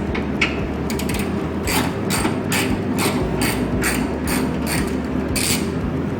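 A hand tool clicking in a quick uneven series, about three sharp clicks a second, over a steady low hum.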